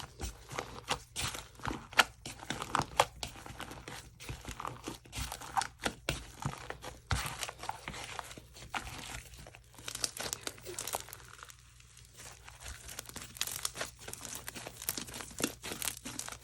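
Hands kneading, stretching and squishing homemade slime, giving dense, irregular crackling, popping and tearing sounds, with a short lull about twelve seconds in.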